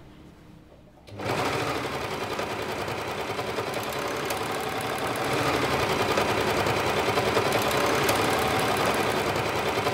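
Four-thread overlock machine (serger) running at stitching speed, a steady fast run that starts about a second in and gets a little louder around halfway.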